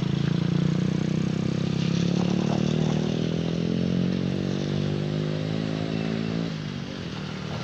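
A vehicle engine running hard at high revs, its pitch edging slightly upward, then dropping away suddenly about six and a half seconds in.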